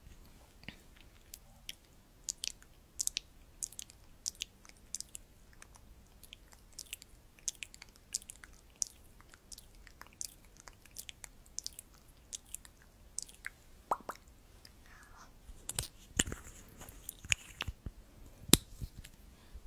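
Close-miked soft, sticky clicks and crackles from a red liquid lipstick's applicator wand being worked in and out of its tube. The clicks are scattered and irregular, with a few louder ones near the end.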